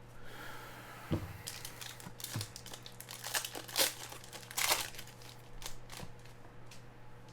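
Foil trading-card pack wrapper being torn open and crinkled, a run of sharp crackles and rips, after a soft thump about a second in.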